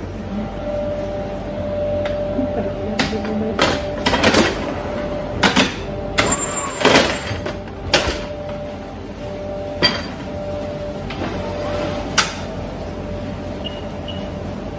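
Metal clattering and knocks as a deck oven's canvas loader carrying dough is slid into the oven, over a steady machinery hum. Near the end come two short beeps from the oven's control panel.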